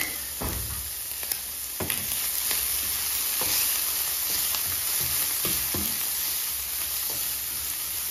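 Diced bacon sizzling in a non-stick frying pan, a steady hiss. A silicone spatula stirs it, with scattered short scrapes and taps against the pan.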